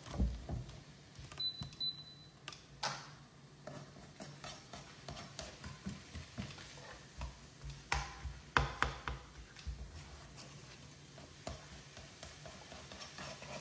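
Slotted spatula scraping and tapping around a non-stick wok as onions and peppers are stirred, over a faint sizzle of frying.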